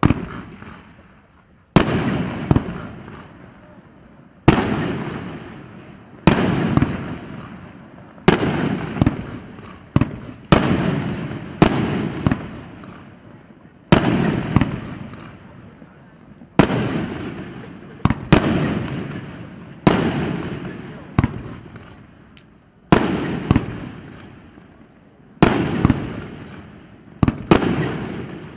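Russkaya Pirotekhnika 'KPSS' 100-shot 1.5-inch fireworks cake firing: sharp bangs about every one and a half to two seconds, each trailing off over a second or so, sometimes two close together.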